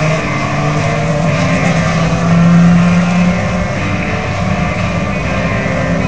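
Many IndyCar engines, the series' ethanol-fuelled Honda V8s, running at low revs as the cars roll slowly along pit road. Several steady engine tones overlap, with one swelling louder about two to three seconds in.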